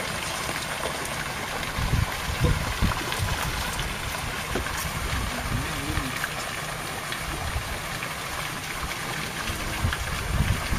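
Water sloshing and trickling as hands move about in waist-deep lake water inside a floating hoop net, with a few low bumps about two to three seconds in.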